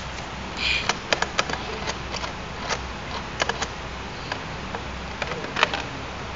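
Irregular sharp metal clicks and taps from a hand handling the lock between two die-cast aluminium LED display cabinets, about a dozen in all with the loudest near the end, over a steady hiss.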